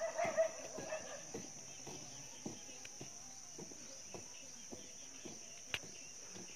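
Steady high-pitched drone of insects in the field, with a few faint scattered clicks.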